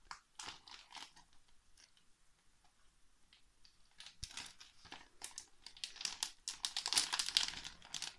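A printed surprise bag (Wundertüte) crinkling and rustling as a child pulls and tears at its sealed top to open it. A few crinkles at first, a quiet pause of a couple of seconds, then the crinkling grows denser and louder in the second half.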